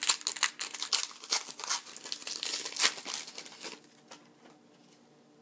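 Trading-card pack wrapper crinkling and tearing as a pack is opened, with a rapid, irregular crackle that stops a little before four seconds in.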